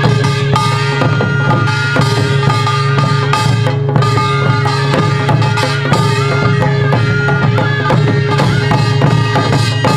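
Korean traditional percussion for the Jindo drum dance (Jindo bukchum): buk barrel drums struck with sticks, with janggu hourglass drum and a brass gong, in a dense, fast, even rhythm. A held melodic line, with its pitch shifting now and then, runs over the drumming.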